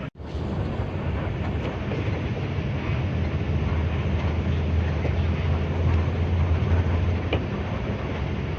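Intercity bus on the move: a steady low engine drone with road noise, swelling a little in the middle.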